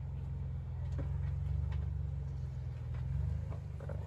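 A vehicle's engine running with a steady low rumble as it crawls over a rocky trail, with a few small clicks and knocks of rock under the tyres.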